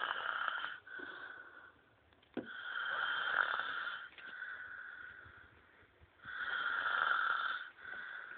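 A man snoring heavily in his sleep: three loud, rasping snores about three seconds apart, each trailing off into a softer breath.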